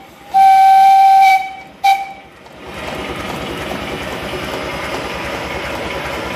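Steam whistle of a 7¼ inch gauge Tinkerbell steam locomotive, blown by hand: one clear blast of about a second, then a short toot about two seconds in. A steady rushing noise takes over from about the middle on.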